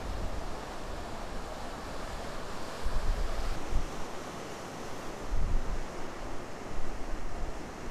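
Ocean surf breaking on the shore, a steady wash of waves, with wind buffeting the microphone in low rumbling gusts about three seconds in and twice more near the end.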